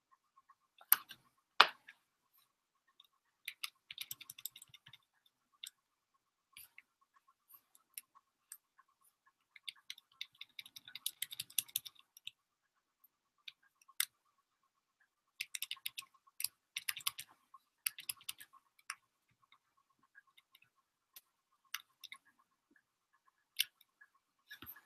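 Computer keyboard typing and clicking in irregular bursts of quick taps, with pauses between them.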